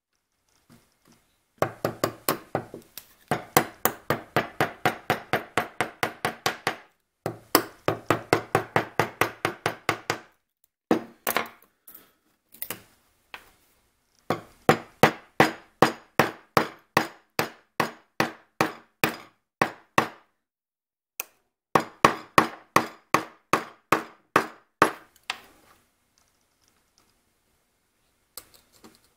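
A chisel struck with rapid, light mallet blows, about five a second, in several runs broken by short pauses, chopping waste out from between saw kerfs in a wooden burr-puzzle piece.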